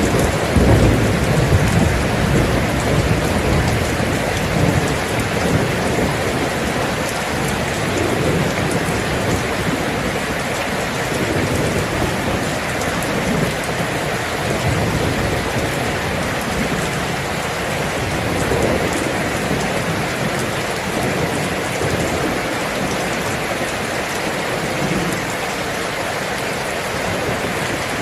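Steady heavy rain falling, an even hiss with a low rumble underneath that is strongest in the first couple of seconds.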